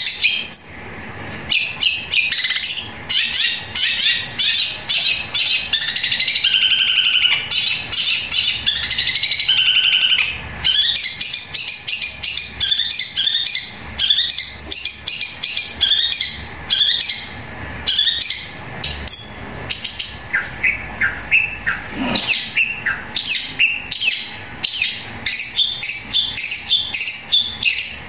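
Long-tailed shrike (cendet) singing loudly in long, fast runs of varied chirps and short trills, broken by a few brief pauses; its song works in mimicked house sparrow chirps.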